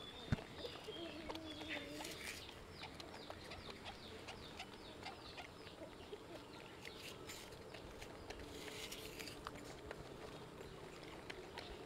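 Baby macaques munching apple slices: faint, irregular crunching and wet smacking clicks. A short wavering call is heard about a second in.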